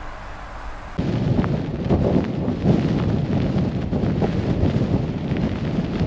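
Strong blizzard wind blowing across the microphone, a loud, gusty rumble with crackles that starts abruptly about a second in, after a quieter steady noise.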